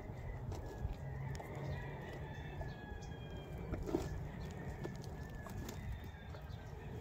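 Faint, drawn-out animal calls in the background over a steady low rumble, with scattered small clicks.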